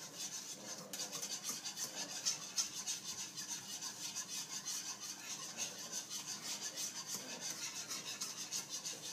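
Wire whisk scraping and swishing around a nonstick skillet, stirring a thickening milk-and-flour sauce in an even rhythm of about four strokes a second.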